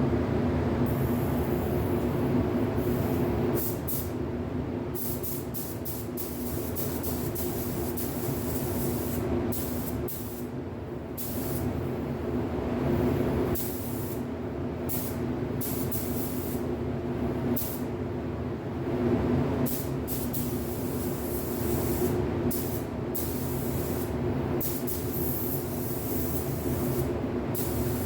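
Automotive paint spray gun hissing in many short bursts as the trigger is pulled and released, over a steady low machine hum.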